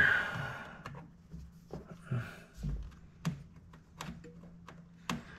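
Scattered light clicks and taps of a small part being pushed and worked into a freshly drilled hole in the car's sheet metal; it won't go in, and the hole is too small for it.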